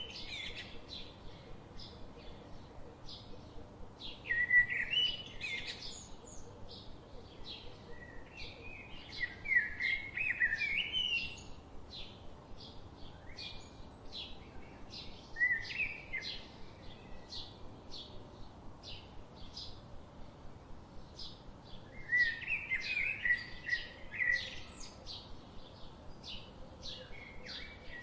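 Songbirds singing: loud warbling phrases come every few seconds, over a steady run of short high chirps repeated about once or twice a second.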